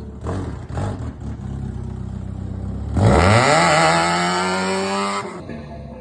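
Vehicle engine running, then revved hard about three seconds in, its pitch climbing quickly and holding high for about two seconds before it drops away.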